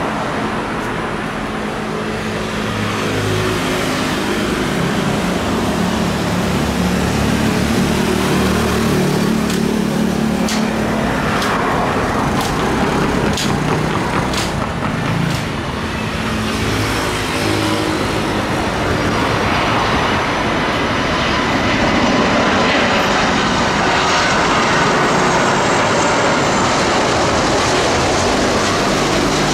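Cars and motorbikes passing close by on a road, then from about two-thirds in the roar of an Airbus A330-343's Rolls-Royce Trent 700 jet engines builds and stays loud as the airliner applies go-around thrust and climbs away from the runway.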